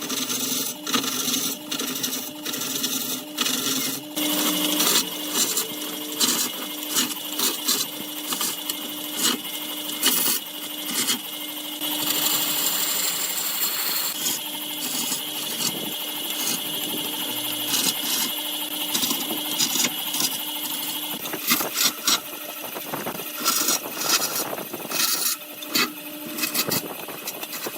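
Wood lathe running with a steady hum while a turning tool cuts the spinning wood in dense, irregular scraping strokes, with a hissier stretch of continuous cutting about halfway through.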